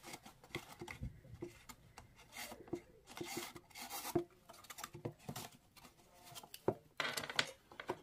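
Stiff cardstock and ribbon being handled: paper rustling and rubbing with scattered small taps and clicks as gingham ribbon is pushed through punched holes with a stylus and pulled out, with one sharper click about two-thirds of the way through.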